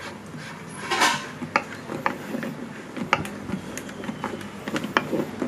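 A PVC pipe fitting being screwed by hand into the plastic outlet of a 20-litre water bottle, its threads wrapped in thread-seal tape: irregular plastic clicks and scrapes, with a longer scrape about a second in.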